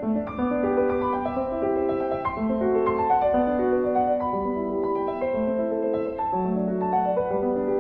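Background piano music: a gentle melody of held notes at a steady moderate level.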